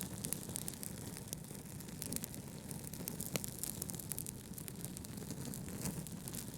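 Fireplace fire crackling, with frequent small irregular pops and a few sharper snaps, over a steady low rush of brown noise.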